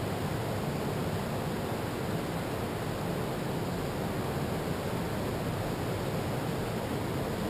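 Steady, even rush of ocean surf breaking along a beach, mixed with wind.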